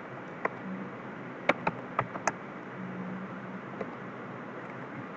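Computer keyboard keys clicking as code is typed: about seven separate, irregular keystrokes over a faint steady hiss.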